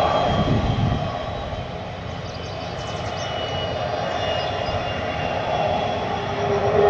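Twin Pratt & Whitney PW306 turbofans of a Gulfstream 200 business jet running on the runway: a steady rumble with a thin high-pitched whine. The sound eases a little about a second in, then builds, stepping up near the end as the engines begin to spool up for takeoff.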